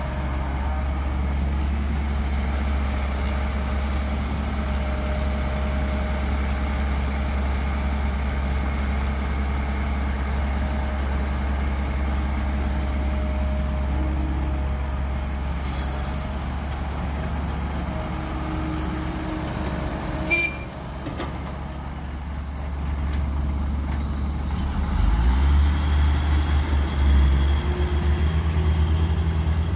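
Diesel engines of a tracked excavator and a dump truck running steadily while dirt is loaded into the truck bed, with one short sharp noise about two-thirds of the way through. Near the end the dump truck's diesel engine gets louder and rises as the loaded truck pulls away.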